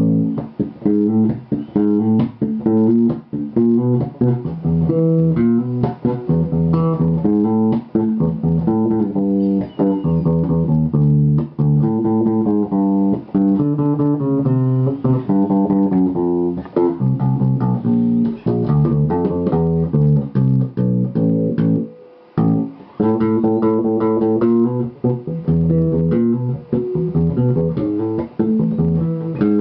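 Electric bass played through an amplifier in a forró groove: a steady, syncopated line of plucked notes, with a brief break about 22 seconds in.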